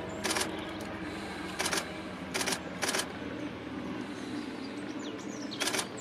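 Five short, sharp clicks at irregular intervals over steady outdoor ambience.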